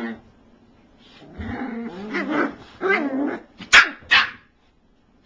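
Eight-week-old Cairn terrier puppies play-growling at each other, then two sharp, high barks in quick succession a little after halfway.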